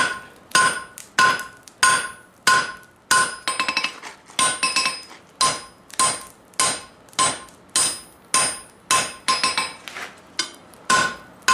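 Hand hammer striking a red-hot iron bar on an anvil, about one and a half ringing blows a second, bending the hot bar into a curve. About three and a half seconds in, a quick run of light taps rattles between the blows.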